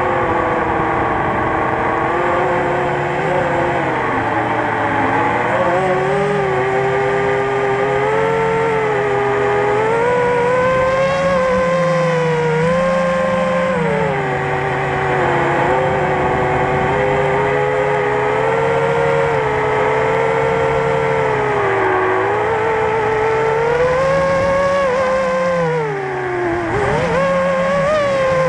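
FPV quadcopter's electric motors and propellers whining, the pitch rising and falling with the throttle and dropping sharply near the end, heard from the drone's own onboard camera.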